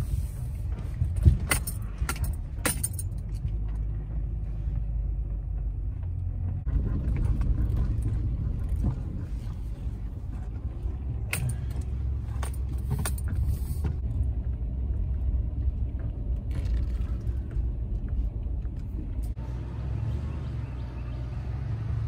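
Pickup truck's cab noise while driving on a dirt track: a steady low engine and road rumble. Sharp rattles and clinks in the cab come in the first three seconds and again about eleven to thirteen seconds in.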